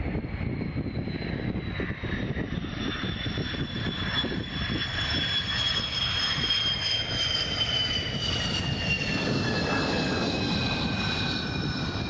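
Jet engines of an F-15 fighter rolling along the runway: a high turbine whine that slowly falls in pitch over a rumble that grows louder in the second half.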